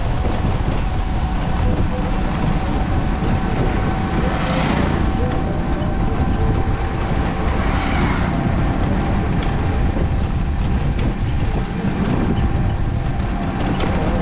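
Steady low rumble of travel along a paved road, wind and road noise from a moving vehicle, with a faint steady whine through it. Two brief rushing swells come about four and eight seconds in.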